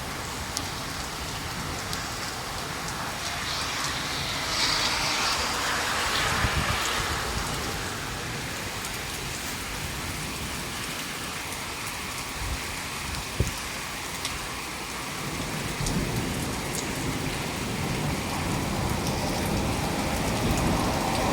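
Steady rain falling and pattering on surfaces, heavier for a few seconds about five seconds in. There is a single sharp knock about two-thirds of the way through, and a low rumble builds under the rain near the end.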